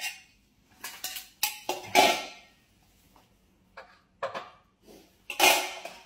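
A string of short, irregular clinks and clatters of metal veterinary instruments, handled around a cat groggy after sterilization. The loudest come about two seconds in and near the end.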